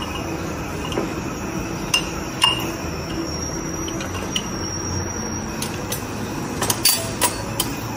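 Glass cups clinking and tapping against a metal mug-tree stand as they are handled, scattered single clinks with a quick cluster near the end, over a steady background hiss.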